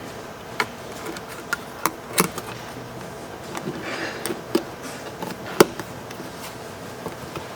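Small clicks and taps of laptop plastic parts and cables being handled and fitted by hand: about six sharp ticks scattered irregularly, with a faint rustle near the middle.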